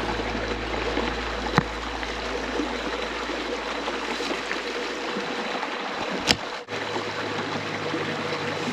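Creek water running over rocks, a steady rushing, with two sharp clicks, about a second and a half in and about six seconds in, and a low rumble underneath that stops abruptly near six and a half seconds.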